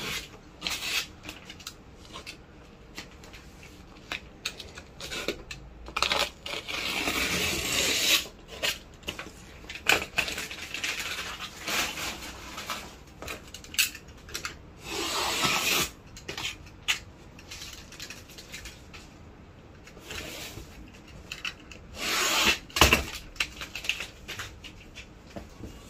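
Snap-off utility knife trimming the edge of an adhesive gumming sheet laid over a board, in long scraping strokes, among clicks and knocks as the knife and boards are handled.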